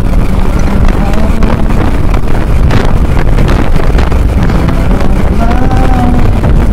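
Wind buffeting the microphone over the steady running noise of a motorbike riding at road speed.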